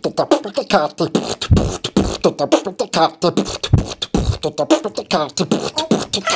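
Intro jingle of fast vocal beatboxing: a rapid run of percussive mouth clicks and pops mixed with short, choppy vocal snippets.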